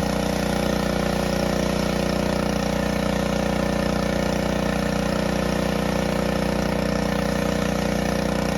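Gas-engine pressure washer running steadily at constant speed.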